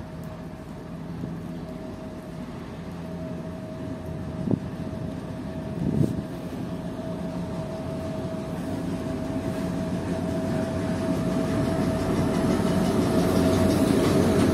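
M62 diesel locomotive's two-stroke V12 engine running as it approaches hauling a train of open coal wagons, growing steadily louder, with a steady whine throughout. Two brief knocks about four and a half and six seconds in.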